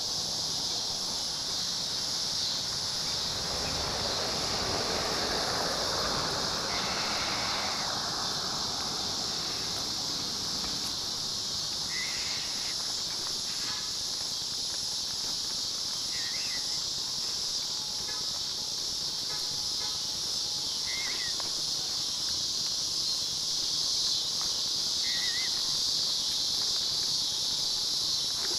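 Steady high-pitched insect chorus, cricket- or cicada-like, running throughout. A broader rushing sound swells and fades over the first several seconds, and a few brief faint chirps come about every four seconds later on.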